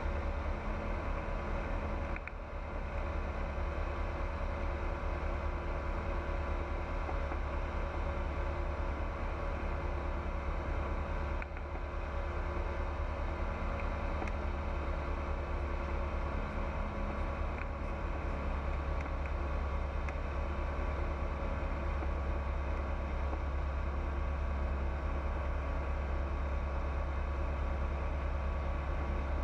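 Pipistrel Virus light aircraft in flight, its engine and propeller droning steadily.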